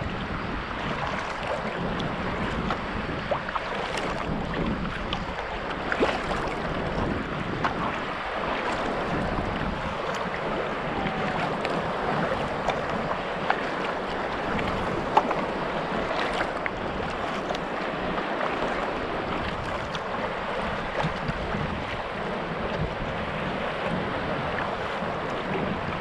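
Water splashing and lapping around a sea kayak under way, with wind buffeting the microphone. A steady hiss throughout, with scattered sharp ticks of water or paddle.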